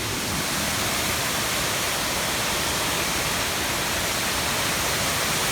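Steady, loud rush of a waterfall on a creek running high, with no break or change.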